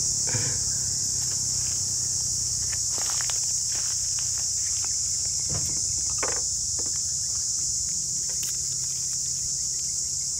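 Steady high-pitched chorus of insects shrilling, with a few faint scattered clicks and knocks of handling on the table.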